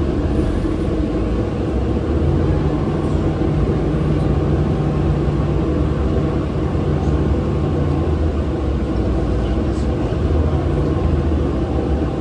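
Orion VII NG transit bus running, heard from inside the cabin: a steady low rumble, with a low hum that comes in about two seconds in and fades out around eight seconds.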